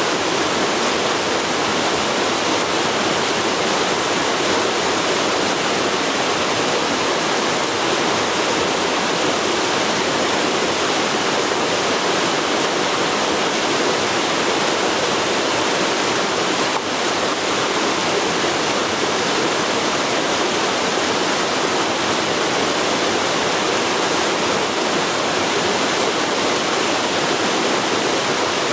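A forest river flowing, its water rushing in a steady, even hiss with no break.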